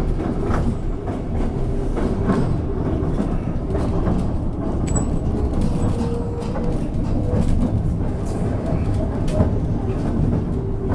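Passenger railcar rolling along the track, heard from on board: a steady rumble with irregular wheel clicks and rattles, and faint squealing tones as the wheels work through curves.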